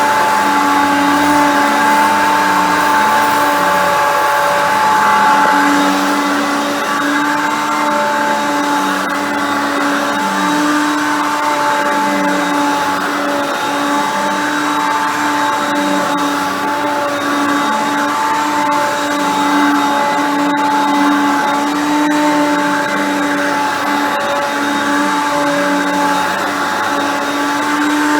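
Hoover Concept Two upright vacuum cleaner running on its highest speed, its 5.6 amp motor giving a loud, steady screaming whine that wavers slightly in pitch. The brushroll is partly struggling.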